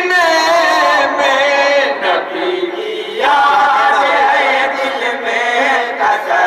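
A group of men chanting devotional verses in unison, with no instruments, the melody rising and falling in long held notes; the voices drop lower and quieter for a moment about two seconds in.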